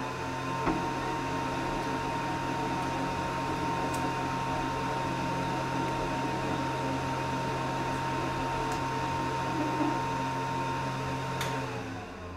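Atezr L2 24W diode laser engraver running a job on hardened steel: a steady machine whine over a low hum, which winds down near the end as the job stops.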